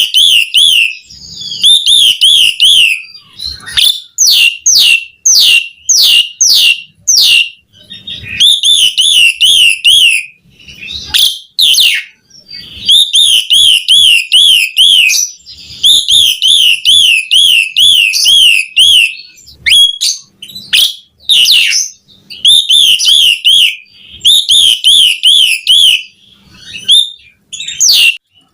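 A jalak suren (pied starling) singing steadily in loud whistled phrases: runs of quick up-and-down notes a second or more long, repeated with short breaks and broken by single sharp rising whistles.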